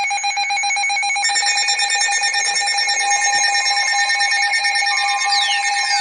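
Emergency alert tones from several receivers going off at once: a steady, shrill alert tone with a fast pulsing flutter, joined by a second tone about a second in and by falling sweeps near the end. The tones announce a new severe thunderstorm warning.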